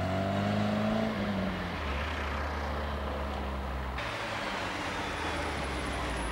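Triumph TR7's four-cylinder engine under acceleration, its note rising for about a second and then easing back to a steady drone. About four seconds in the sound cuts to a quieter, steady engine note as the car comes up close and slows.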